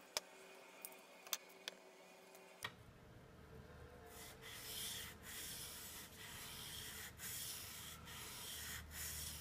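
A few sharp clicks as a small hand plane is handled, then a steel plane blade honed by hand on a sharpening stone: a scraping hiss in repeated strokes, with short breaks between them about once a second.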